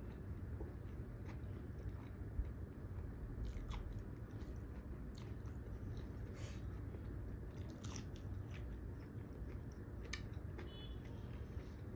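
A person chewing and eating a meal, with wet mouth sounds and a few sharper clicks and smacks.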